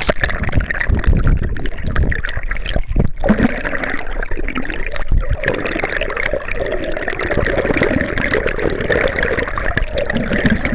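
Loud, steady underwater rushing and gurgling picked up by a camera held below the surface, with water moving against its housing and many small crackles and clicks over it. It starts suddenly as the camera goes under.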